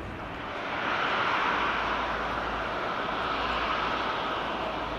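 Jet engines of a Lufthansa Boeing 747-430 (four GE CF6-80C2 turbofans) running, a steady rushing noise that grows louder about a second in and then holds.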